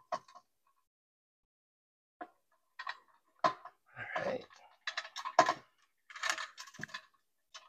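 Insulated wires and plastic wire nuts being handled and shoved around inside a metal light fixture's wiring channel: irregular small clicks and rattles, starting about two seconds in.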